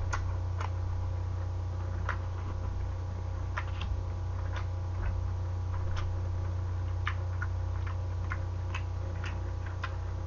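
Eating sounds: scattered small clicks from chewing and from wooden chopsticks picking up slices of boneless pork trotter, over a steady low hum.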